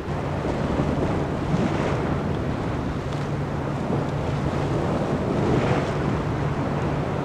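Sea waves washing and breaking against a rocky shore, with wind buffeting the microphone and a steady low hum underneath.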